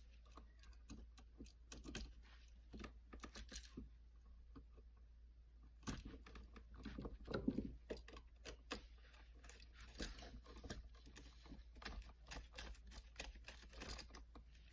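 Faint, scattered small clicks and scrapes of a screwdriver working the terminal screws on a GFCI receptacle while solid copper wires are handled into the terminals.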